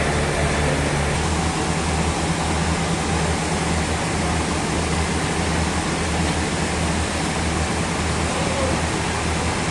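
Steady machinery noise: an even rushing hiss over a constant low hum.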